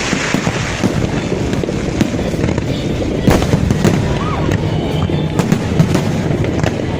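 Fireworks display: a continuous dense crackle and rumble of bursts, with sharper bangs several times.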